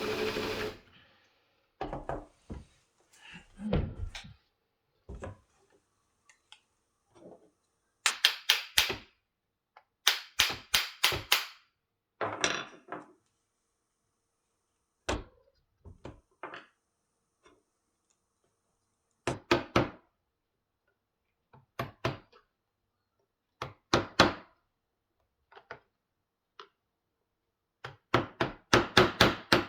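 Hammer blows in quick bursts of several strikes with pauses between, driving the damaged forend end cap off an old Winchester 44-40 rifle. A small motor that was running stops just after the start.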